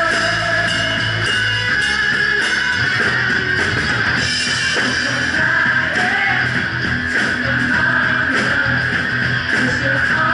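Live rock band playing, electric guitar to the fore over bass and a Ludwig Vistalite drum kit keeping a steady beat.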